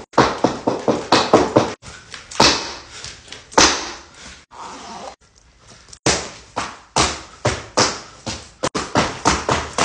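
Black patent heelless platform boots knocking on the floor in a quick clip-clop, about three strikes a second, as the wearer jumps and stomps. After a short lull about five seconds in, stiletto-heeled boots knock in the same kind of rhythm.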